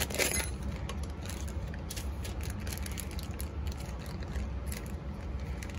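Hands rustling a clear plastic bag and handling an HDMI cable, with scattered small clicks and taps, over a steady low hum.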